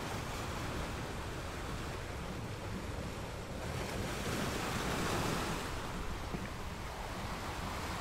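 Ocean surf: a continuous rushing wash over a steady low rumble. One wave swells midway, is loudest about five seconds in, then falls back.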